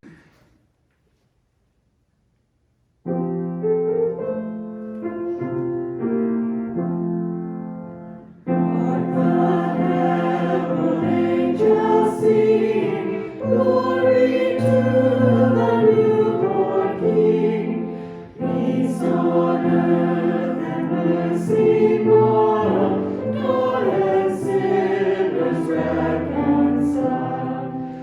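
Silence for about three seconds, then a short piano introduction, then a choir singing with piano accompaniment.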